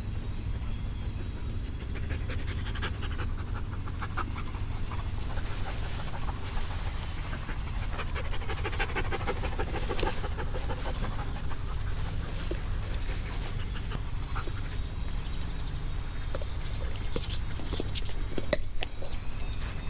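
Dog panting close to the microphone, quick rhythmic breaths that are strongest in the middle, over a steady low rumble.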